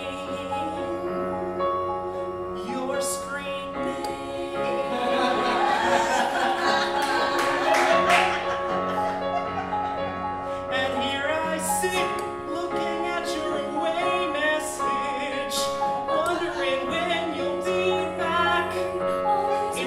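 A man singing an improvised song, with held chords on a Yamaha electric keyboard under him.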